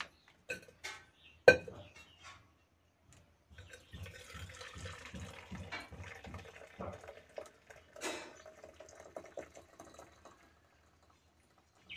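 Hot chai being strained from a steel pan into cups. A few sharp metal clinks come first, the loudest about one and a half seconds in. Then several seconds of tea pouring and trickling through the strainer, with an occasional clink.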